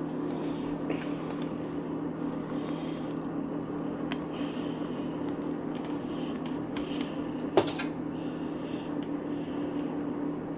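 A steady low electrical hum, with faint rubbing and rustling against the microphone and one sharp click about seven and a half seconds in.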